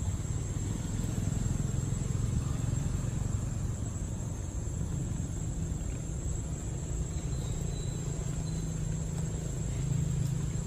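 A steady low rumble, swelling slightly near the end, with a thin steady high-pitched whine above it.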